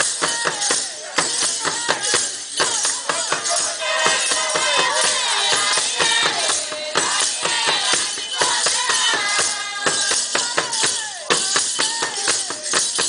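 Traditional Rwandan drumming with rattles or shakers keeping a fast, steady beat, while voices sing along.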